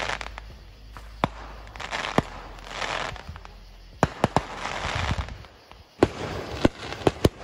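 Fireworks going off: a string of sharp bangs, bunched about four seconds in and again near the end, with crackling hiss between them.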